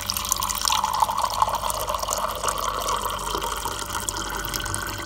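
Water from a kitchen tap pouring steadily into a glass mug, filling it.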